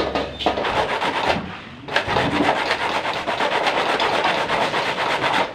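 Fresh coconut flesh grated by hand on a flat metal grater: rapid rasping strokes, with a short break about a second and a half in.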